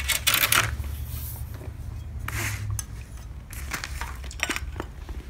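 An aluminum curve ruler and a clear plastic grid ruler being picked up, slid and set down on a paper-covered table: a few short knocks and rustles, over a steady low hum.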